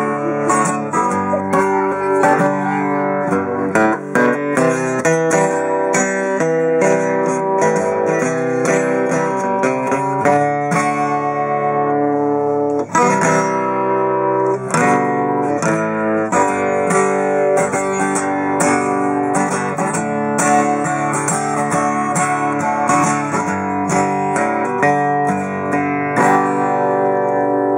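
Martin SWDGT solid-wood dreadnought steel-string acoustic guitar being played, a run of strummed and plucked chords with ringing, sustained notes.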